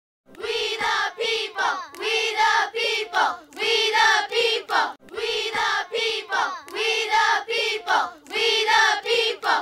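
High voices singing together in a short, choppy sung phrase on a steady held pitch, the same phrase heard twice in a row, like a sung theme for a show's opening.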